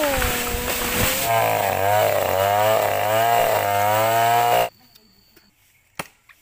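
Gasoline chainsaw running and cutting into an oil palm trunk, its pitch wavering up and down under load. It cuts off abruptly about three-quarters of the way through.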